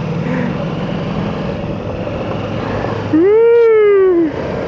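Motorcycle riding noise, steady engine and wind, heard from a bike-mounted camera on a dirt trail. About three seconds in, a loud pitched call of about a second rises, then slides back down.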